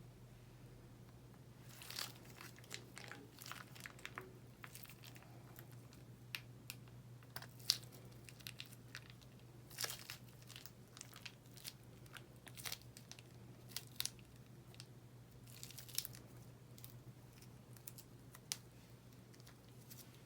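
Slime being squished and worked by hand, giving irregular crackling pops and clicks, some in quick clusters, over a steady low hum.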